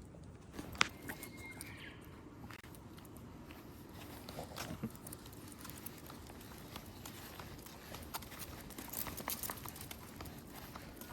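Light footsteps and scattered small clicks over a steady background hiss, with a short high chirp about a second in.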